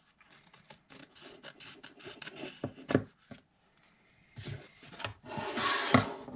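Scissors snipping a thin strip of excess canvas fabric, a run of short snips with the loudest about three seconds in. Then the canvas rubs and slides across the tabletop as it is turned over.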